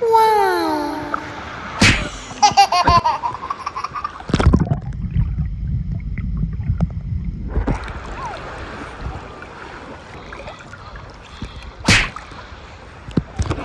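Sea-water splashing with a person's falling squeal and laughter near the start. For a few seconds in the middle the sound turns dull and muffled, only a low rumble left, as the camera's microphone is dunked underwater, then the splashing comes back.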